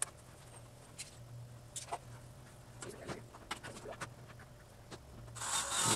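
Scattered light knocks and clicks of hands and tools working a wooden frame, over a steady low hum. Near the end a louder whirring burst starts: a cordless drill driving a screw.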